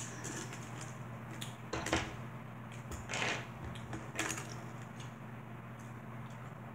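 A small plastic water bottle is handled at the lips and set down: a sharp click, then a few light knocks and rustles, over a low steady hum.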